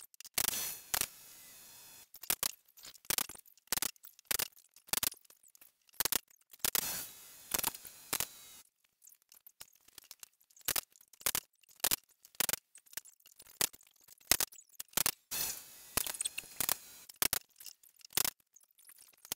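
Pneumatic nailer fastening pine boards, an irregular series of sharp clicks about one or two a second, with short stretches of faint hiss between some of them.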